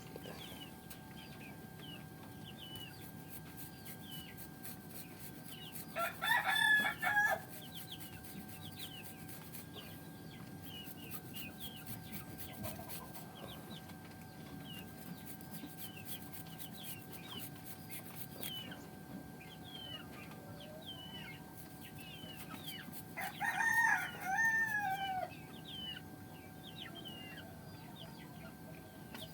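A rooster crows twice, each crow lasting one and a half to two seconds, the second ending on a falling note. Short high chirps keep sounding in the background over a faint steady hum.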